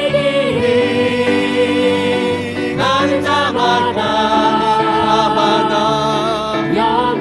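Korean praise song sung by a worship team and congregation with instrumental accompaniment, held sung notes between lines of the chorus.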